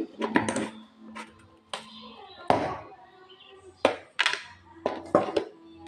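Plastic jar handling: the lid of a plastic kitchen jar clicking open and a spoon scooping sugar from it, with several sharp knocks and clicks of the spoon against the jar.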